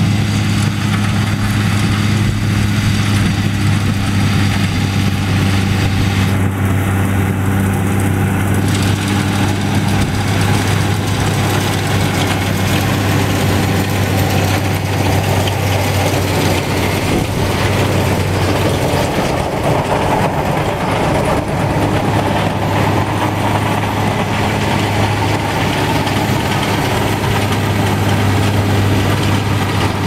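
Tractor diesel engine running steadily while it pulls a New Holland 544 round baler that is baling hay, the baler's machinery running along with it. A low, even hum throughout; the noise above it grows denser about twenty seconds in.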